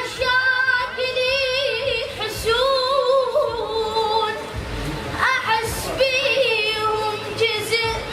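A high voice singing an unaccompanied, ornamented melody: long held notes that waver and slide in pitch, in phrases with short breaks between them.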